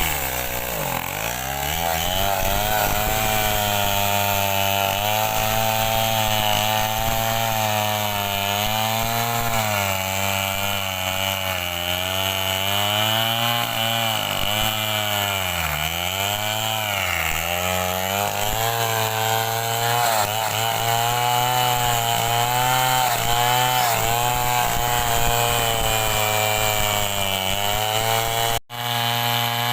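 A Stihl 070 two-stroke chainsaw, assembled from parts, sawing mahogany under load. The engine pitch repeatedly sags and recovers as the bar bites into the wood. There is a brief break in the sound near the end.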